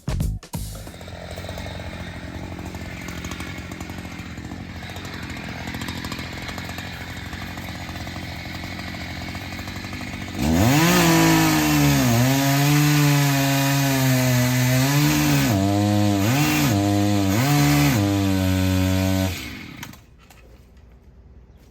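Gas chainsaw cutting into a tree. It runs quieter for the first half, then about ten seconds in it gets much louder, its pitch dipping and recovering several times as it bogs under load in the wood. It cuts off suddenly near the end.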